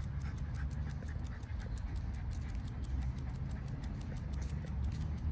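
A French bulldog panting, over a steady low rumble, with quick light clicks about five a second.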